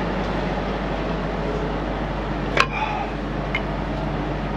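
Diesel truck engine idling steadily, with a sharp click about two and a half seconds in and a faint one a second later.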